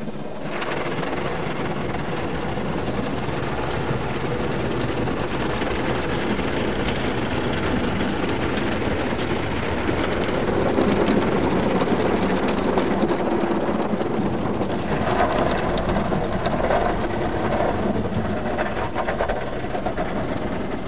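Car wash heard from inside the car's cabin: water and wash equipment spraying and beating against the windows and body, a loud, steady rushing noise. It comes on suddenly and swells about ten seconds in.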